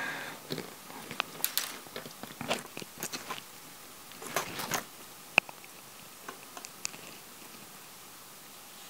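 Handling noise of fingers working a flat ribbon cable into the tiny connector of a thin circuit board on a cutting mat: scattered small clicks, taps and crackles, with one sharp click a little over five seconds in and only faint ticks after.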